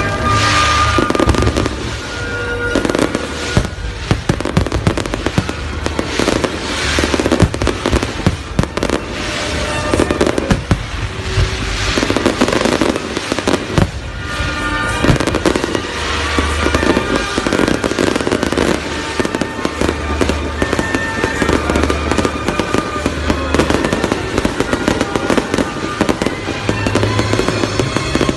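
Fireworks display: a rapid, continuous string of bangs and crackling bursts, over loud music with a steady low beat.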